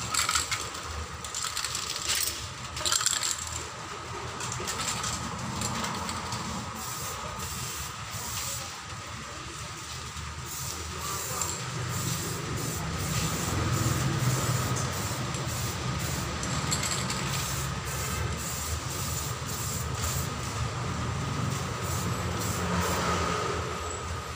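Short hisses of an aerosol can of Samurai metallic silver spray paint near the start and again a couple of seconds in. Light clicks recur throughout, over a steady low mechanical rumble.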